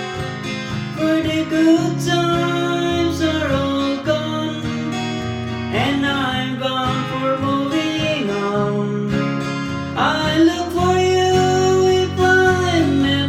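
Country-folk music: acoustic guitar strumming steady chords, with a held melody line that slides between notes over it.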